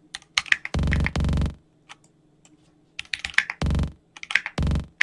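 Buzzy synth bass note from a kick sample looped and pitched up in Ableton's Drum Sampler, played three or four times in short notes under a second long. Computer-keyboard typing and clicks fill the gaps between notes.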